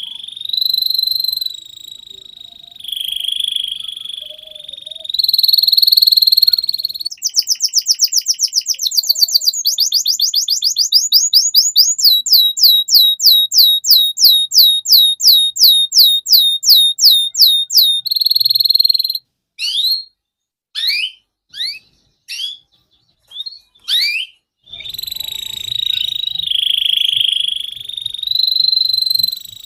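Domestic canary singing a long, varied song. It opens with steady rolling trills, then runs of fast repeated downward-sweeping notes that slow to about four a second, a few separate swooping notes with short gaps, and rolling trills again near the end.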